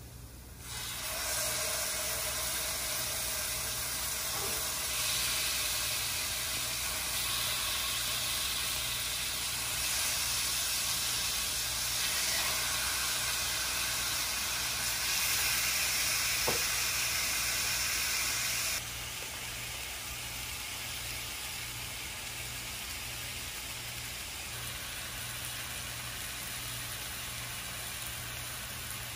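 Raw chicken thighs sizzling in a hot stainless steel pan, starting about a second in as the pieces go in. About two-thirds through the sizzle drops to a quieter, steady level.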